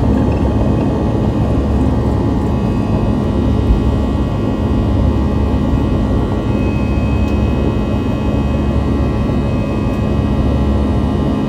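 Airbus A320 jet engines at takeoff thrust, heard inside the cabin over the wing as the airliner lifts off and climbs. The sound is a steady, loud, deep rumble with several steady whining tones above it, and one short knock about four seconds in.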